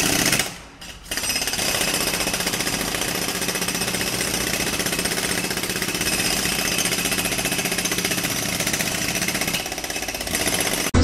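Loud, rapid mechanical hammering like a power tool at work, continuous and even after a short lull about a second in.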